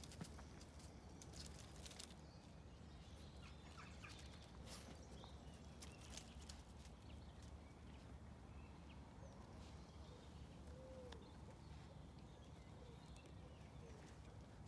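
Near silence: faint outdoor ambience with a low steady hum and a few scattered soft clicks and rustles.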